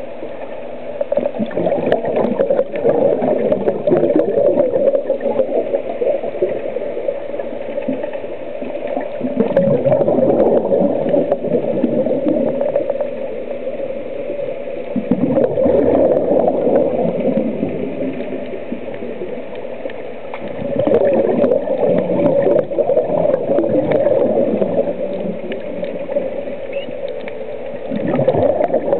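A scuba diver's regulator, heard underwater, letting out exhaled bubbles in gurgling bursts, five of them about six seconds apart, one for each breath.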